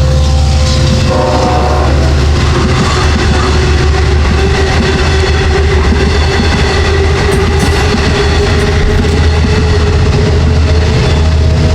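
Long Island Rail Road train hauled by DM30AC diesel locomotives running on the line: a steady low diesel drone with rail clatter. A short cluster of tones comes about a second in, and a single high tone is held through most of the rest.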